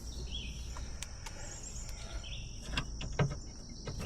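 Outdoor ambience: a steady high insect drone with a few short bird chirps, and some light clicks and knocks in the second half.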